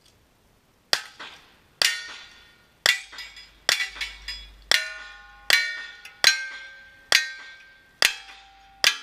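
A string of ten gunshots in cowboy action shooting, fired at an even pace of about one a second. Each shot is followed by the ringing clang of a steel target being hit.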